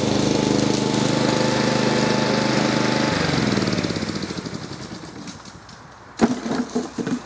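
The 5.5 hp four-stroke Honda engine of a Flymo XL500 petrol hover mower runs steadily. About three seconds in it cuts off and runs down over a couple of seconds as the engine stops. A few sharp knocks and clatters follow near the end.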